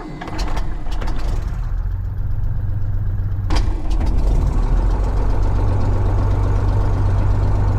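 A 1967 Cessna 172H's Continental O-300 six-cylinder engine starting: it catches within the first second and then runs at a steady idle. There is a single sharp click about three and a half seconds in.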